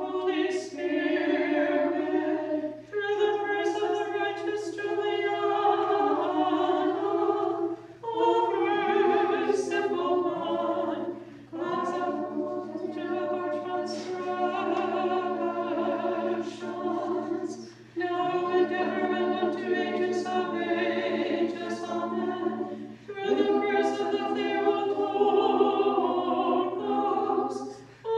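Orthodox nuns chanting a liturgical hymn a cappella in several voices, in sustained phrases of a few seconds each with short breaks between them.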